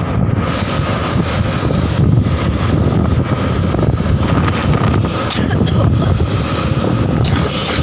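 Loud wind rushing over the microphone, mixed with road and engine noise, while riding along behind a bus.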